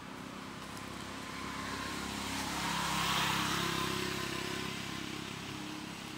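A motor vehicle passing by. Its engine hum and tyre hiss grow louder to a peak about halfway through, then fade away.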